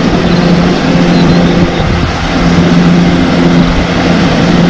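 Diesel engine of a wheel loader running hard as it pushes snow with a plow blade, a loud steady drone.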